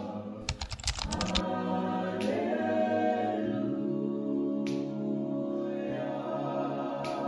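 Gospel choir singing a cappella, with voices held in harmony. A quick run of clicks comes about half a second to a second and a half in.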